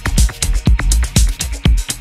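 Electronic house/techno dub track playing: a steady kick drum about twice a second with sharp hi-hat and percussion clicks between the beats.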